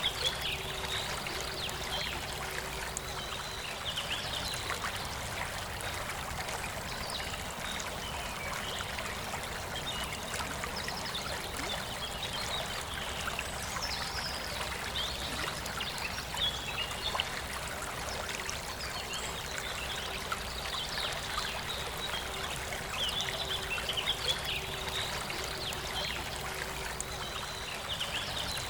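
Forest river flowing and trickling steadily, with birds chirping on and off over the water.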